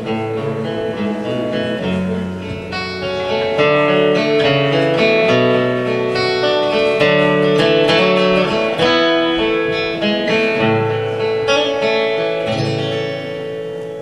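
Solo acoustic guitar playing the closing instrumental passage of a song, plucked and strummed chords ringing out and growing quieter near the end.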